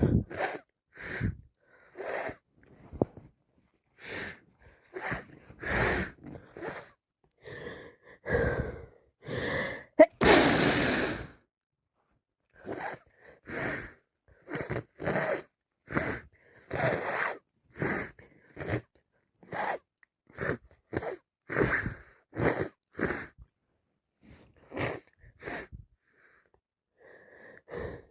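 A woman with a head cold caught in a sneeze build-up: a long run of short, sharp gasping breaths, one roughly every half to one second, with one loud wet sneeze about ten seconds in.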